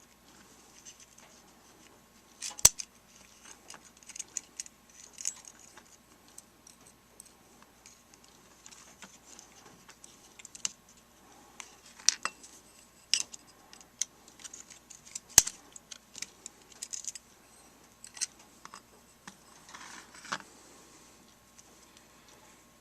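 Small plastic and metal parts of a cordless screwdriver being handled and worked back into its housing: scattered light clicks and rattles, with two sharp knocks, one about three seconds in and one about halfway through.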